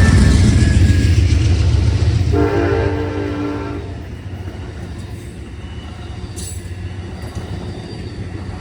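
Union Pacific freight locomotive's heavy engine rumble, loud at first and fading after about two seconds as it moves off, with one horn blast of over a second about two and a half seconds in.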